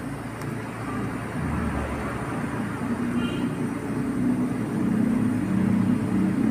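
A low motor rumble that grows gradually louder.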